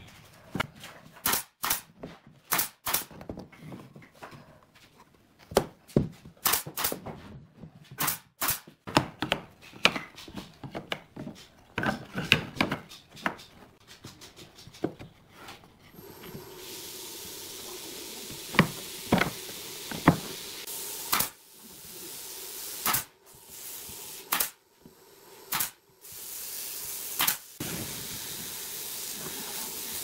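Pine frame strips and boards handled and knocked together on a wooden workbench: a run of sharp wooden clacks and taps. About halfway through, a steady hiss sets in beneath them, with several more sharp cracks.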